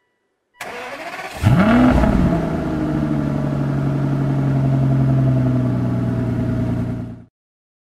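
Aston Martin DB9's V12 engine being started: the starter cranks for about a second, the engine catches with a quick rev flare that rises and falls, then settles into a steady idle. The sound cuts off abruptly near the end.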